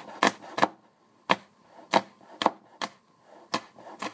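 Cleaver chopping a hot pepper on a wooden cutting board: about eight sharp knocks of the blade on the wood, unevenly spaced at roughly two a second.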